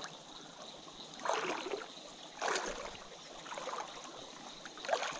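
Shallow river water swishing three times, slow and separate, as someone moves carefully through it.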